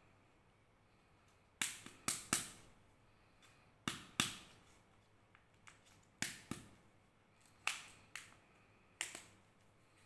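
Hard plastic Kinder Joy egg shells being handled: a series of sharp plastic clicks and taps, mostly in quick pairs, about one pair every two seconds.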